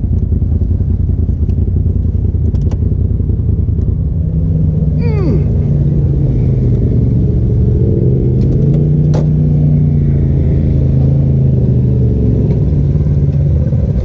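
Polaris RZR Turbo side-by-side's turbocharged engine running at low trail speed, heard from inside the open cab, with knocks and rattles from the rough ground. About five seconds in there is a short falling whistle, and after that the engine settles into a steadier note.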